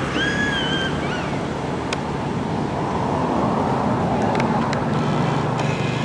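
Steady rumble of road traffic, with a low engine hum growing louder about five seconds in. A brief high call sounds near the start.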